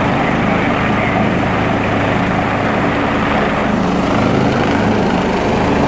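Helicopter running overhead: a steady, loud beat of the main rotor blades over the hum of its turbine engines.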